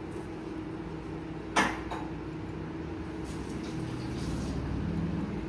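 One sharp knock of kitchenware, with a weaker tap just after it, about a second and a half in, over a steady low hum. A low rumble builds toward the end.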